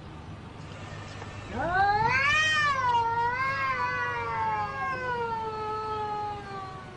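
A cat's single long, drawn-out yowl, starting about a second and a half in. It rises at first, wavers, then slides slowly down in pitch for about five seconds.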